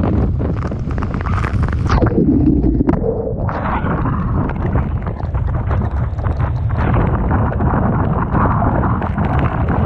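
Typhoon-force wind buffeting the microphone over the constant rumble of rough sea and crashing surf. About two seconds in, the sound goes dull and muffled for a second or so, then the full roar of wind and surf comes back.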